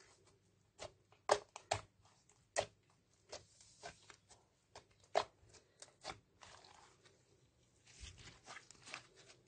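Slime being kneaded, pressed flat and pulled by hand on a tabletop: irregular sticky clicks and pops as it squishes and pulls apart.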